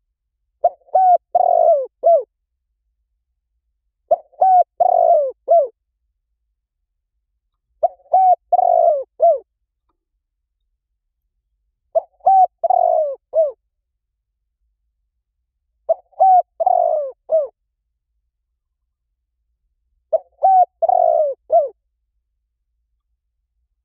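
Spotted dove cooing: a phrase of several coos, each note dropping in pitch at its end, repeated six times about every four seconds. It is a recorded call used to lure doves in.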